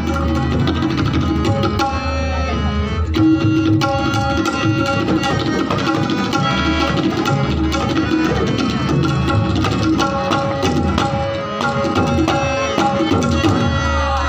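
Tabla solo: dense, rapid strokes on the pair of drums, with the bass drum's deep booming tone pulsing underneath, over a harmonium holding a steady accompanying melody.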